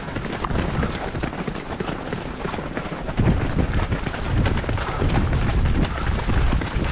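Wind buffeting the microphone of a runner's camera in a low, irregular rumble that grows stronger about three seconds in, over the runner's steady footfalls on wet road.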